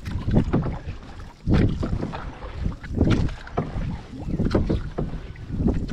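Canoe paddle strokes splashing in river water, roughly one every second and a half, with wind buffeting the microphone.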